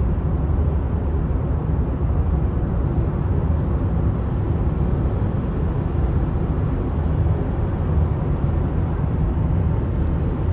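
Steady road and engine noise inside a moving car's cabin: an even low rumble that holds at one level throughout.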